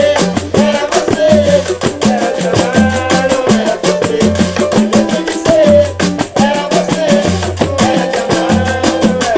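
Upbeat music with a repeating bass line and steady percussion, a melody running over it.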